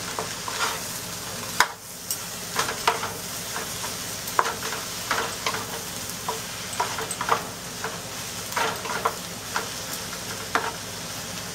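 Sliced yellow squash sizzling as it sautés in a nonstick pan, with a wooden spatula scraping and tapping against the pan in irregular strokes as it is stirred. One sharper knock comes about a second and a half in.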